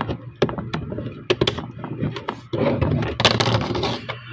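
Small hard plastic toy pieces being handled and pressed onto a plastic toy wing: a run of sharp clicks and knocks, with a denser stretch of plastic handling noise about two and a half seconds in.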